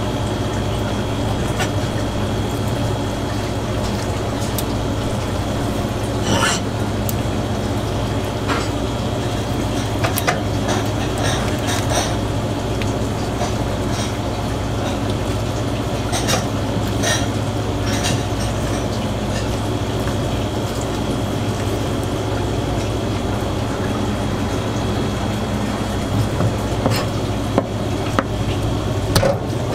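Steady mechanical hum with a thin high whine, over scattered light clicks and taps of a kitchen knife against a plastic cutting board while a pufferfish is gutted.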